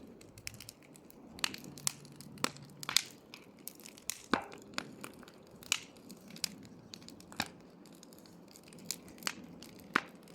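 Wood campfire crackling: irregular sharp pops and snaps, roughly one or two a second, over a low steady hiss of burning.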